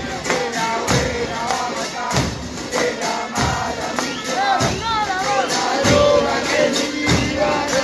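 Crowd of football fans singing a terrace chant together over a steady pounding drum beat, with a strong hit about every second and lighter hits between.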